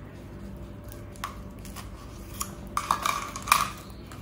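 Metal clinks and knocks of stainless steel cone moulds against each other and a wire cooling rack as baked pastry horns are twisted off the moulds and set down. A couple of single light taps, then a quick cluster of clinks, the loudest about three and a half seconds in.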